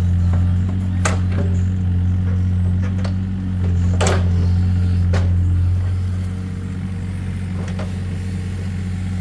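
Mini excavator's diesel engine running steadily, a low hum that eases slightly about six seconds in, with a few sharp knocks over it.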